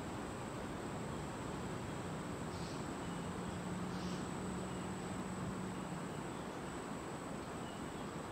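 Steady outdoor forest ambience: a continuous high, thin insect trill over a soft hiss, with two brief faint chirps and a low hum lasting a few seconds in the middle.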